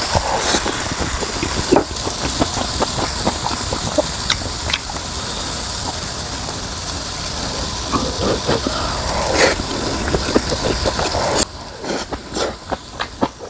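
Meat sizzling in a hot pan: a steady hiss with scattered pops and crackles. About eleven and a half seconds in, the sizzle cuts off suddenly, leaving a few short clicks and knocks.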